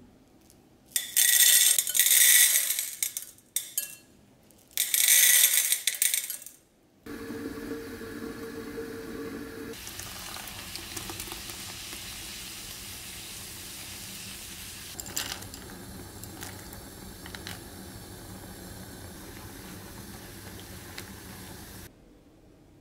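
Wooden spoon stirring in a glass bowl: two loud bursts of scraping and clatter a few seconds apart. Then, after a short low hum, a pot of pumpkin porridge simmering and bubbling, with a few knocks of the spoon against the pot, cut off abruptly near the end.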